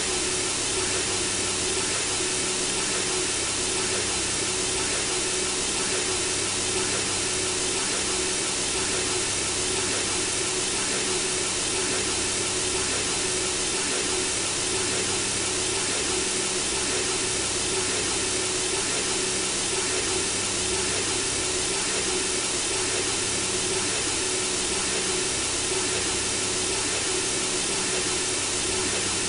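Steady white noise from a synthesizer, meant to lull a baby to sleep: an even, unbroken hiss with a faint low hum underneath.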